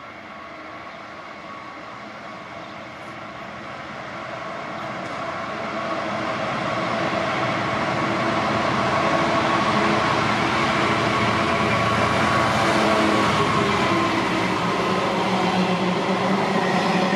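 A train approaching along the line, growing louder over the first nine seconds or so and then running past steadily, with several steady tones over the rumble.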